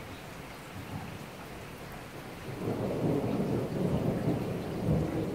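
Steady rain falling, with a low rolling rumble of thunder that swells up about halfway through and keeps rumbling.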